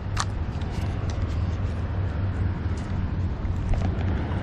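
Steady low engine drone with a noisy wash over it, and a single sharp click just after the start.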